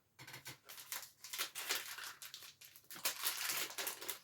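Snack packaging crinkling as it is handled, in a quick irregular run of crackles.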